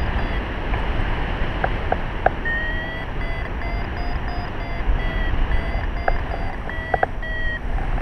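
Paraglider variometer beeping in short steady tones that step up and down in pitch, the sound it makes when the glider is climbing, over a steady rush of wind on the microphone.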